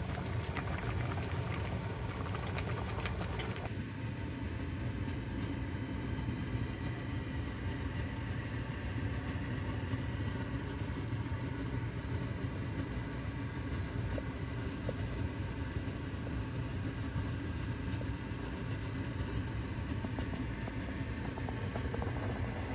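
Pot of chicken sinigang boiling on the stove: a steady low rumble, with a bubbling crackle that fades away about four seconds in.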